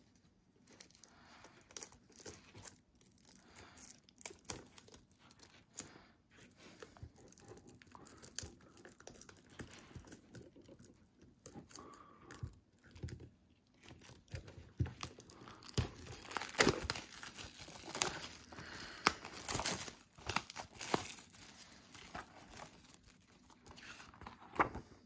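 Plastic shrink-wrap being picked at, torn and peeled off a SteelBook disc case, making irregular crinkling and crackling with small clicks. The crackling grows louder and busier in the second half.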